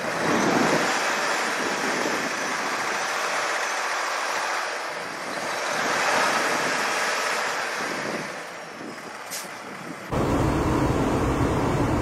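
Semi-truck stuck in deep snow: a steady rushing noise with no clear engine note, swelling about half a second in and again around six seconds. About ten seconds in it changes suddenly to a deep, steady rumble of wind buffeting the microphone.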